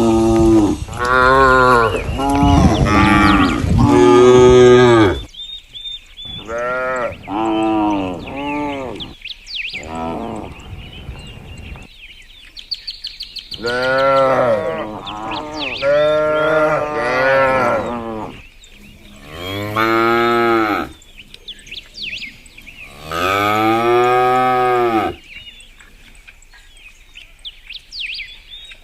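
Village cattle mooing over and over, several calls overlapping at first, then single and paired moos with short gaps between them. Birds chirp steadily behind.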